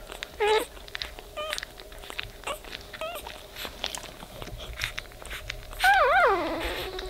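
Newborn Weimaraner puppies squeaking while nursing: short high cries about once a second with small clicks between, then about six seconds in a louder, longer cry that wavers, falls in pitch and holds steady.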